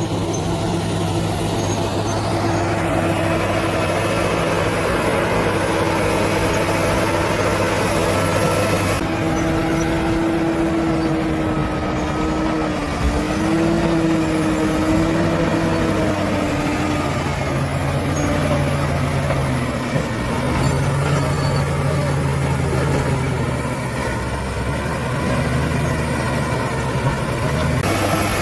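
Bulldozer's diesel engine running steadily under load, its pitch dipping and rising as the load changes, with an abrupt change in the sound about nine seconds in.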